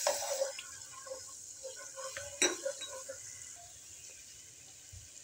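Ground garlic sizzling in hot oil in a non-stick wok, stirred with a spatula that scrapes the pan and gives one sharp knock about two and a half seconds in. The sizzle thins toward the end.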